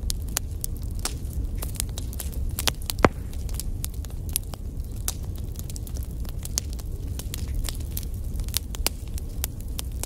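Wood log fire crackling in a fireplace: a steady low rumble of flames under frequent sharp pops and snaps, the loudest pop about three seconds in.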